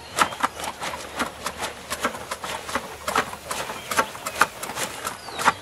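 Tea-plucking shears snipping through tea bushes: a run of sharp, uneven clicks, about three a second, with leaves rustling.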